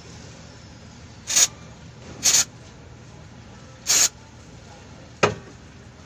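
Three short blasts of aerosol cleaner sprayed into a car's throttle body, each lasting about a quarter second, then a single sharp click about five seconds in.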